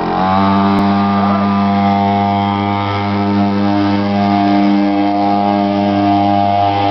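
Small mini dirt bike engine running at a steady pitch as the bike tows a child on a sled through snow.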